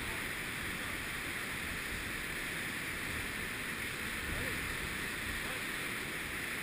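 Steady rushing of the White River's whitewater falls and rapids far below, an even, unbroken roar of water.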